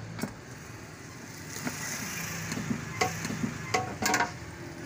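A hand tool scraping and clicking against the edge of a fiberglass tool box, in a few short strokes with a denser burst of scraping near the end, over a steady low mechanical hum.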